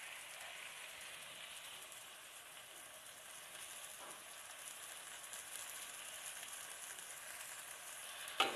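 Sliced onions and tomatoes sizzling faintly and steadily in oil in a metal pan as the tomatoes soften. Near the end there is a single knock, the spatula against the pan as stirring begins.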